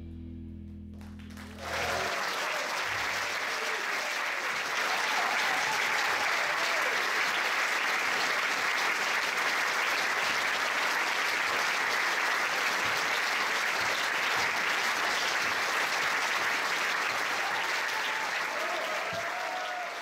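A live band's final held chord cuts off about two seconds in, and the audience breaks into sustained applause, with a few whoops and cheers.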